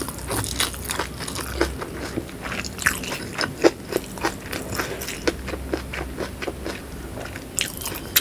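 Close-miked chewing of whole-shallot sambal, with many short crisp crunches and wet mouth clicks.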